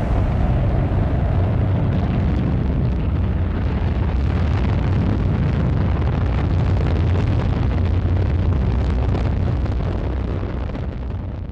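Ariane 5 rocket lifting off: loud, steady, deep engine noise from its boosters and main engine, fading away near the end.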